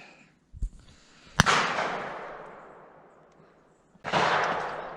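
Two shotgun shots about two and a half seconds apart, the first a sharp crack, each trailing off in a long rolling echo over a second or two.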